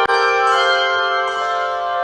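Handbell choir ringing sustained chords, the bells' tones overlapping and lingering, with a new chord struck just after the start.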